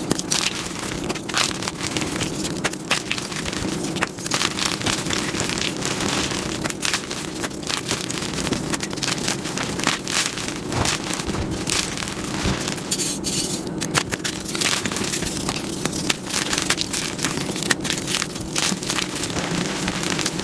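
Blocks of gym chalk being crushed and crumbled in the hands: a dense crunching made of many small, sharp cracks as the chalk breaks into chunks and powder.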